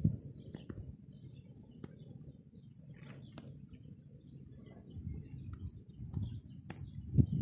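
Outdoor ambience: low rumbling on the microphone with a few sharp clicks and faint bird chirps, and a louder low bump near the end.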